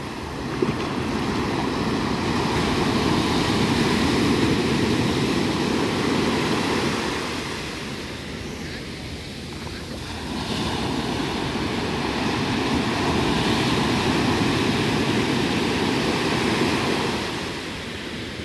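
Ocean surf breaking and washing up a sandy beach: the rush of the waves swells up about a second in and again around ten seconds, each time easing off after several seconds.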